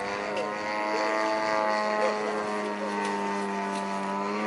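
Radio-controlled model airplane's motor and propeller running steadily in flight, its pitch holding level, then rising a little near the end.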